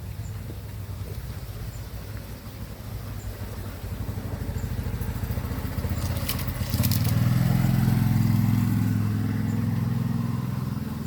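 A motor vehicle's engine running and drawing closer, louder from about four seconds in and loudest a little past the middle before easing off. A brief clatter of clicks comes just before it peaks.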